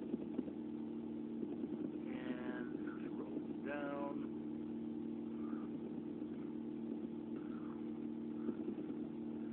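A steady low electrical or machine hum made of several fixed tones. Two brief voice sounds come through it, about two and four seconds in.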